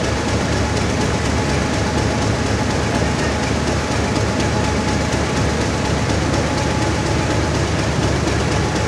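English Electric-built Queensland Rail 1620 class diesel locomotive idling steadily, with a thin steady whine over the engine's low running.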